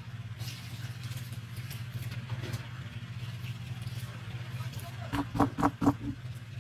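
Steady low machine hum, with a quick run of about five knocks about five seconds in as an upturned plastic bucket of cement is tapped on the mould to release it.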